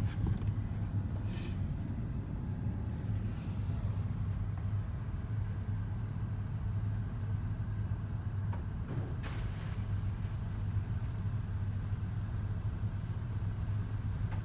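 AUTEC EV-2 automatic car wash heard from inside the car: a steady low hum under water spray hissing against the car. The spray grows stronger about nine seconds in.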